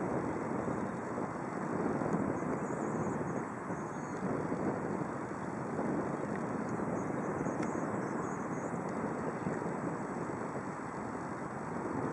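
Airbus A319 twin jet engines at takeoff thrust during the takeoff roll: a steady rushing jet noise.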